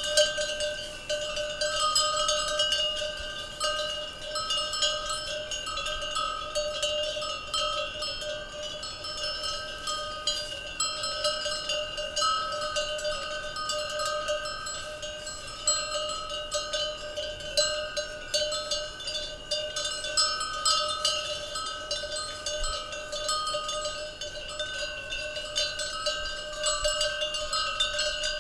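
Many cowbells worn by cattle, clanking together irregularly and without pause, their ringing overlapping into several sustained tones.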